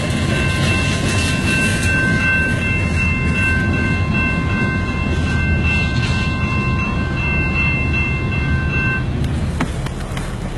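Freight train rolling past with a steady low rumble, and a steady high-pitched ringing over it that cuts off about nine seconds in.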